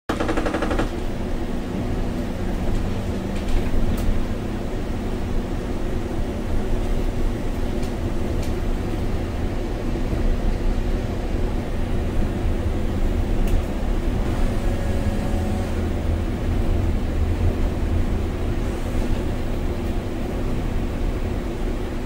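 Inside the cab of a MAN Lion's City city bus with a biogas engine while it drives: a steady low engine drone and dense road rumble, with a few single sharp clicks a few seconds apart.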